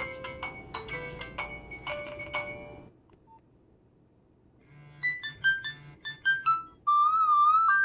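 Nokia 1112 ringtones playing through the phone's small speaker. One melody of short electronic beeping notes ends about three seconds in. After a brief pause a new tune begins, a quick run of notes with a wavering trill near the end.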